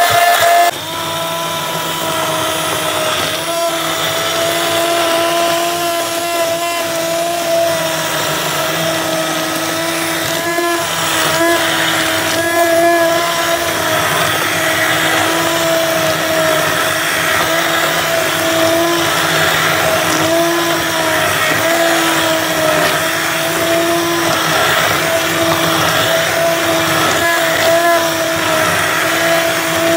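Immersion (stick) blender running steadily, puréeing a thick tomato sauce in a pot. Its motor whine holds a steady pitch, with slight dips as the blade head works through the sauce.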